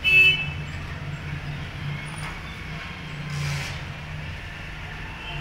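A disposable pocket lighter struck once, a short sharp click and rasp as it catches, then its flame held against the wire's PVC insulation. A low steady hum runs underneath, with a brief hiss about three and a half seconds in.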